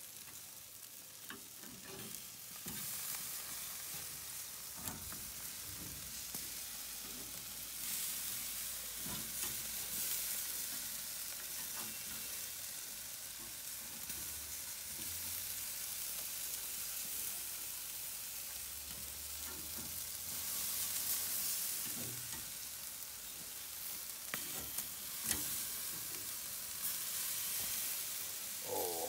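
Entrecote steaks sizzling steadily on the grate of a charcoal grill as they are turned with metal tongs, with a few sharp clicks scattered through the sizzle.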